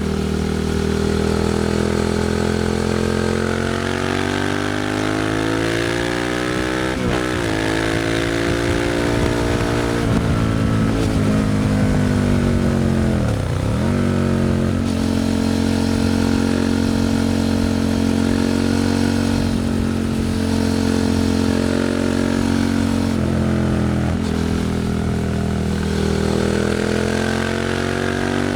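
Suzuki SV650's 645 cc V-twin running through a Leo Vince aftermarket exhaust while the bike is ridden. The engine note climbs and falls with the throttle and dips sharply at gear changes, with the deepest drop about halfway through.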